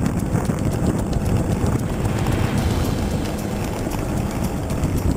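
Toyota Hilux 4x4 driving over a rough off-road track: a steady low engine drone with frequent small knocks and rattles throughout.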